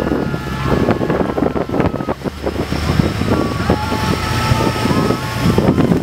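Speedboat running at speed while towing an inflatable ring, with wind buffeting the microphone and water rushing past. A thin, wavering high tone runs over the noise through the middle.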